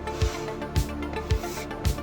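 Background music with a steady beat, a low drum hit about twice a second.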